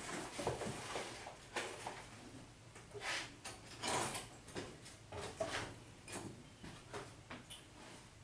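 Irregular clicks, knocks and rustles of objects being handled and moved about as someone rummages for a flashlight.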